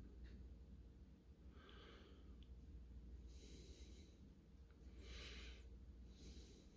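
Near silence over a low steady hum, with a few soft breaths, about four, close to the microphone.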